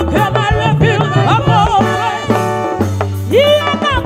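Live band music with women singing together into microphones, a song in Igbo, over a steady bass line and drums.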